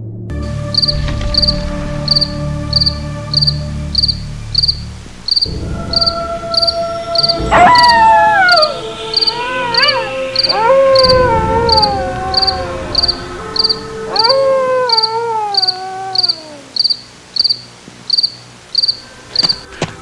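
Eerie horror sound bed: crickets chirping in an even pulse of a little over two a second over a low drone and held tones. Three long wailing howls, each falling in pitch, come in from about seven and a half seconds in.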